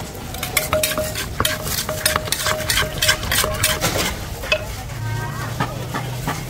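Wooden pestle and metal spoon knocking, scraping and tapping against a clay mortar as som tam (green papaya salad) is pounded and tossed: a quick, irregular run of sharp clicks and knocks that eases off after about four seconds.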